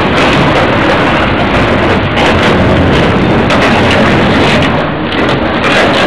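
Hydraulic excavator with a demolition shear working on a railway car's sheet-metal roof: a loud, steady, dense noise of the machine running hard, with occasional faint knocks.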